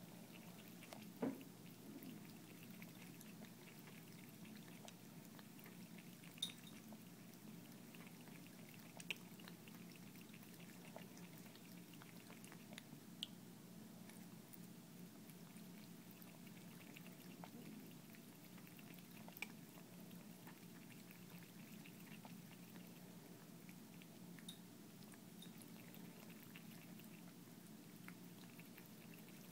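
Thin stream of tap water running faintly and steadily into a sink while a cat drinks from it, with a few sharp clicks spaced several seconds apart, the loudest about a second in.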